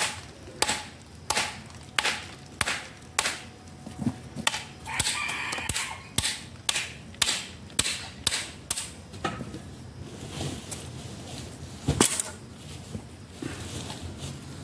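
Repeated chopping strokes of a blade striking tree bark, about one and a half a second, as the thick bark is stripped off without cutting into the wood. The strokes stop about two-thirds of the way through, then one hard strike comes near the end.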